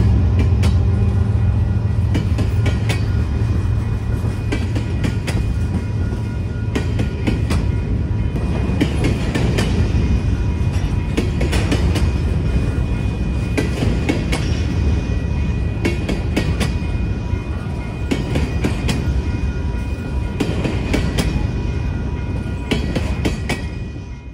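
Covered hopper cars of a grain freight train rolling past close by: steel wheels clicking over rail joints in an irregular clickety-clack over a steady rumble, with a faint steady high tone running underneath.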